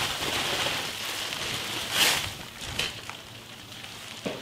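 Pale malt pouring from a sack into a mash tun of hot water: a steady pattering hiss of grain falling onto the wet mash, louder for a moment about two seconds in, then tailing off with a few small knocks as the sack empties.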